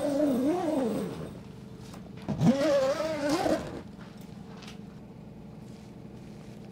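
A man humming two short wavering phrases, each about a second long, the second starting with a rising slide. Then only a faint steady background.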